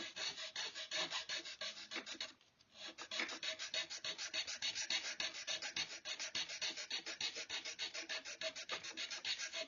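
Small hand file rasping in quick, even strokes, several a second, with a brief pause about two and a half seconds in. The filing eases the spot where the rifle's loading stick is binding.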